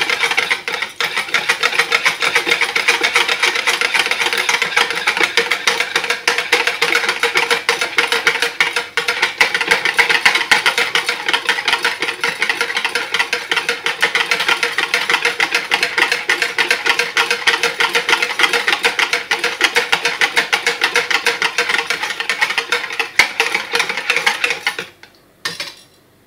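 A metal utensil stirring fast in a plastic jug, scraping round the bottom and sides as jelly crystals and sugar dissolve in hot water. The scraping stops shortly before the end.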